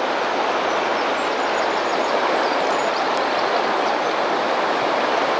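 Steady rush of a large, fast-flowing river's current.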